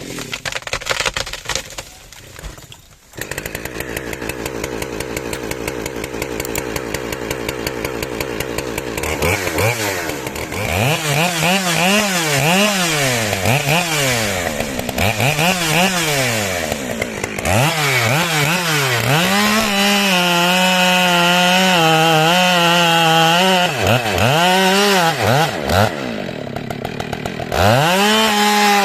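Small engine that starts running about three seconds in and idles with a fast, even beat. From about nine seconds in it is revved up and down again and again, and held at high speed for a few seconds around twenty seconds in.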